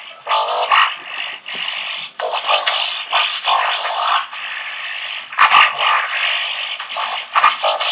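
Irregular scratching and scraping noises in short, uneven bursts, a sound effect for the mysterious noise heard through the door, with a sharper, louder burst about five and a half seconds in.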